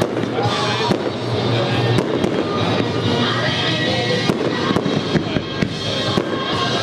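Fireworks display going off: a run of sharp bangs and crackles from bursting shells and launching comets, several spread through the few seconds. Music is playing loudly underneath.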